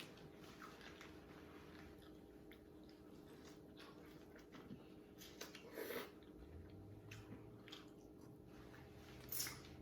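Faint chewing and eating noises, with a few soft clicks and smacks scattered through, over a low steady hum.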